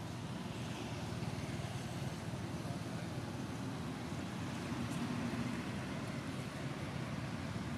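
Steady low rumble of distant road traffic, unchanging, with no distinct events standing out.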